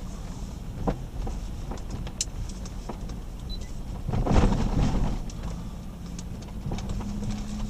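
Jeep Grand Cherokee WK2 driving, heard from inside: a steady low rumble of engine and road noise with scattered clicks and rattles, a knock about a second in, and a louder swell of noise between four and five seconds in.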